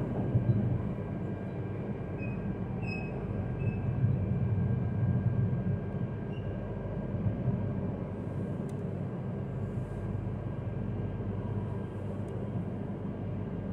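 Yamagata Shinkansen Tsubasa train running steadily, heard from inside the passenger cabin as an even low rumble.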